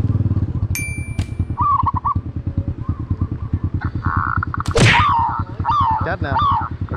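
A motorcycle engine runs at low speed with a steady putter while birds call repeatedly over it. A brief high steady tone sounds about a second in, and a sharp whooshing sweep comes near five seconds in.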